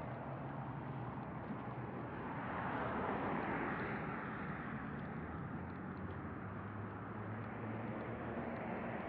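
Street traffic: cars driving by on a multi-lane road with a steady low engine hum. One car passes close about three seconds in, its tyre and engine noise swelling and then fading.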